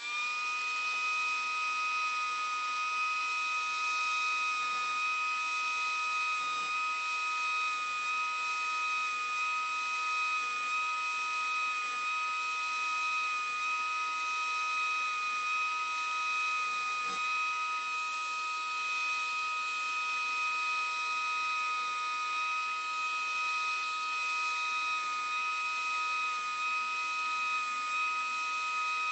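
Router spinning up to speed and running with a steady high-pitched whine. There is no change in pitch from cutting load.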